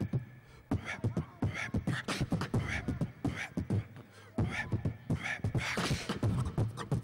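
Beatboxing into a microphone: a quick rhythm of vocal kick-drum thumps and hissing snare and hi-hat sounds, with a brief pause about four seconds in.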